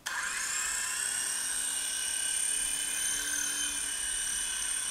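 Small electric motors and rotors of an iPhone-controlled 3-channel toy R/C helicopter in flight, a steady high-pitched whine that rises briefly in pitch at the start.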